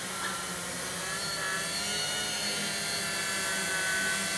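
Hexacopter's six Digitech X80 brushless motors spinning Graupner 11x5 e-props while it hovers: a steady multi-tone motor whine and propeller drone, pitches drifting slightly as the motors adjust, growing a little louder toward the end.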